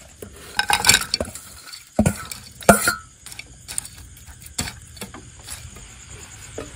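Plates and a spoon clinking and scraping as food is dished up, with a few scattered sharp knocks, the loudest about two and a half seconds in.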